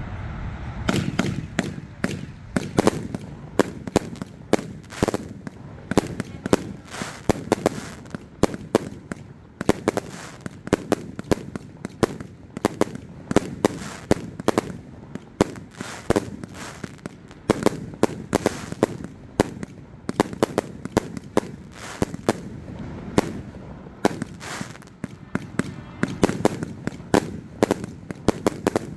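A 228-shot consumer firework cake firing in rapid succession, starting about a second in: a continuous string of sharp bangs and pops from the launches and aerial bursts, several shots a second.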